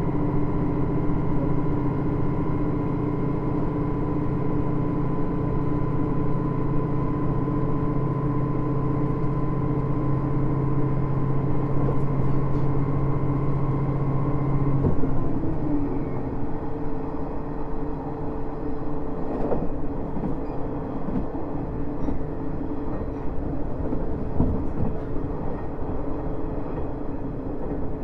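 Running sound of the JR East KiHa 110 diesel railcar: its engine drones steadily under power, with a whine higher up. About halfway through, the engine's low drone drops away, leaving wheel and rail noise with a few sharp clicks of rail joints.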